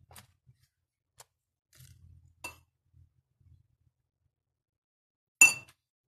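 A few faint taps, then one loud, sharp clink of a utensil against a dish about five and a half seconds in, while cheese filling is spooned onto a yufka sheet.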